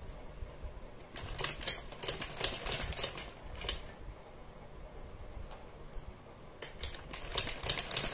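Domestic sewing machine stitching in two short runs: a rapid clatter of needle strokes starting about a second in, a pause, then another run near the end.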